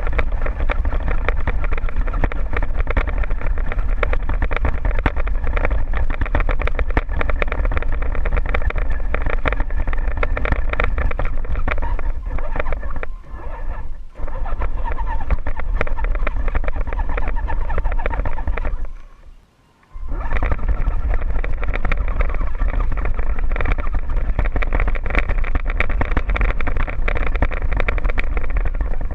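Electric motor and gear train of a radio-controlled scale crawler whining steadily as it drives over gravel, dropping out briefly about two-thirds of the way through when the throttle is let off.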